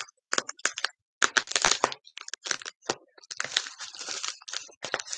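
Packing wrap being torn and crumpled by hand as an item is unwrapped: irregular crackling and rustling in uneven bursts.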